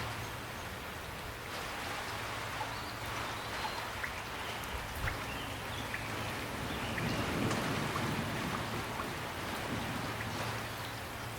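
Steady rain falling, with scattered individual drops ticking on a surface and a low steady hum underneath.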